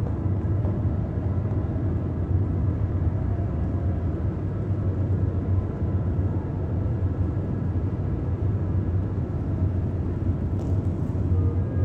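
A steady low rumble with faint high steady tones held above it.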